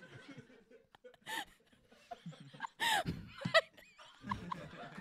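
People laughing and chuckling in short bursts, loudest about three seconds in.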